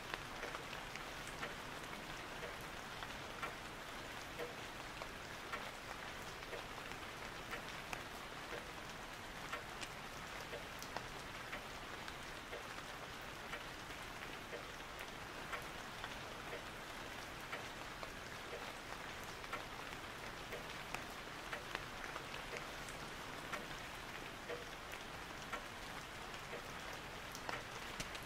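Steady rain-like patter: an even hiss with many small ticks scattered throughout.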